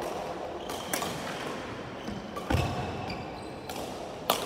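Badminton rally: racket strings striking the shuttlecock with sharp cracks about a second in and again near the end, with a heavier low thud in between, echoing in a large hall.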